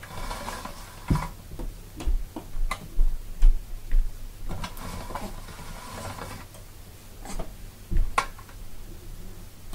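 Hand-cranked pasta machine rolling a thin sheet of polymer clay, with irregular clicks and knocks from the crank, rollers and thickness dial and a few low thumps. The sheet is being stepped down through the settings to the machine's thinnest.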